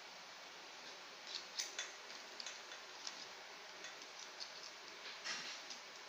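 Irregular light clicks and taps of metal tongs against boiled crab shells, pan and plate as crab pieces are picked up and laid out, over a faint steady hiss. The clicks begin about a second in, with a cluster just after and another near the end.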